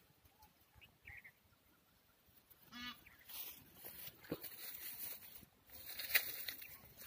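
Faint rustling and crackling of wheat stalks and ears brushing against the phone as it moves through the crop. About three seconds in there is a single short honk-like call.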